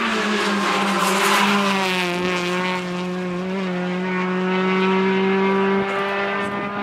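Renault Clio Williams rally car's 2.0-litre four-cylinder engine passing at speed: its note drops in pitch as it goes by in the first couple of seconds, then holds steady as the car pulls away.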